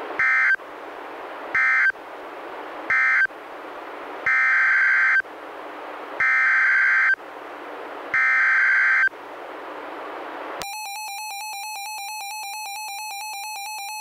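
Weather-radio data tones: three short buzzy SAME end-of-message bursts, then three longer SAME header bursts about a second each, with receiver hiss between them. About ten and a half seconds in, the Reecom R-1630 weather radio's own tornado-warning alarm starts, a steady fast-pulsing tone.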